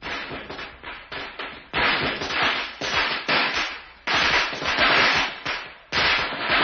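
A string of firecrackers going off in dense, rapid cracks, starting abruptly out of silence and coming in loud waves.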